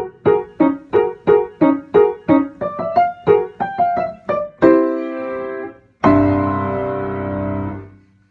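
Grand piano playing short, separated notes about three a second, then a held chord that is cut off, and a final loud chord with a deep bass, held for about two seconds before it fades out near the end.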